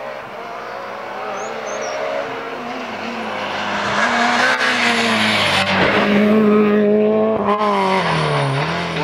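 Peugeot 206 rally car's engine at speed, approaching and passing close by with a rush of road noise, then pulling away. Its engine note drops in pitch about seven and a half seconds in and rises again just before the end.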